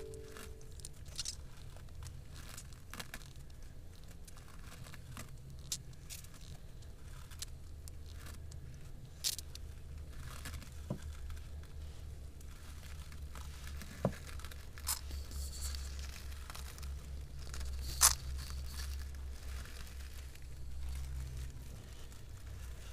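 Scattered scrapes, rustles and sharp clicks from eastern blue-tongued skinks' clawed feet and scaly bodies moving against the camera and grass, over a low steady rumble. The sharpest click comes near the end.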